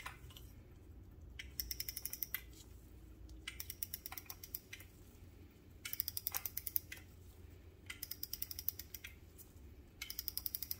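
A clock's mainspring being wound with a winged key under its wooden base: the winding ratchet clicks rapidly in short runs of about a second, five turns about two seconds apart.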